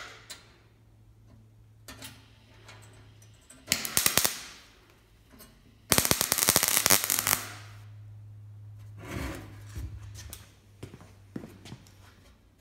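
Electric welder tack-welding the steel handles of an ammo box: a brief crackling spurt about four seconds in, then a longer, louder crackling weld of about a second and a half near six seconds, with a steady low hum underneath.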